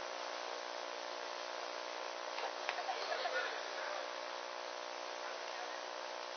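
Steady electrical mains hum and buzz with tape hiss on an old, thin-sounding live recording, with faint murmurs of voices in the background about halfway through.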